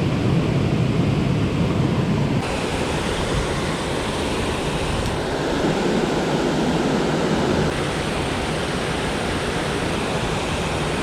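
Steady rushing of river water, a dense hiss with no pitch, changing abruptly in tone a few times.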